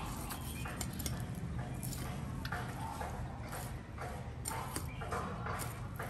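Knife blade ticking and scraping over the rib bones of a large green parrotfish as the fillet is cut away from the frame: a run of irregular sharp clicks over a steady low hum.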